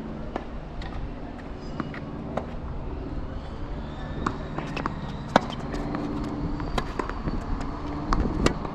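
Tennis ball being hit and bouncing during a rally, about ten sharp, irregular knocks with the loudest about halfway through, over a steady low rumble of strong wind on the microphone.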